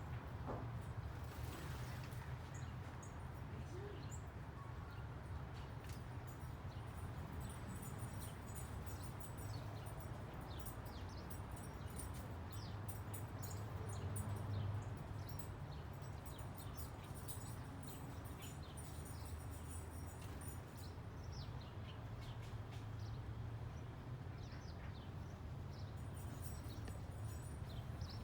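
Small birds chirping with short, high calls scattered throughout, over a steady low background rumble.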